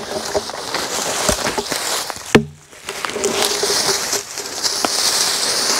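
A log pulled with a hookeroon scraping and dragging across dry leaf litter: continuous rustling and crackling of leaves and twigs, with a sharp knock about two and a half seconds in.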